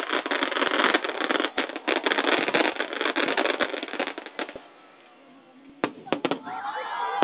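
Fireworks crackling: a dense, rapid run of many small sharp reports that dies away after about four and a half seconds, followed by a few separate sharp bangs about six seconds in.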